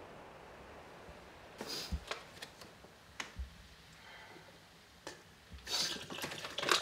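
Handling noises: a few short rustles and clicks, then a longer spell of rustling near the end, over a faint steady hiss.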